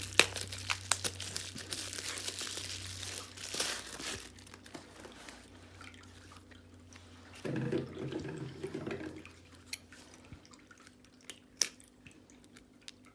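Packaging being unwrapped by hand: dense crinkling and crackling of the wrapping for the first four seconds or so, then scattered small clicks and rustles as it is handled. A brief low hum comes about seven and a half seconds in.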